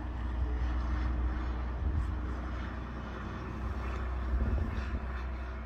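City bus engine running with a steady low rumble as the bus works its way along a sheet-ice road.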